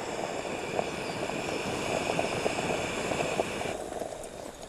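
Jetboil Zip gas canister stove burning with a steady hiss under a cup of water at a rolling boil, which crackles and pops. About three-quarters of the way through, the gas is turned off and the burner hiss cuts out suddenly, leaving the bubbling to die down.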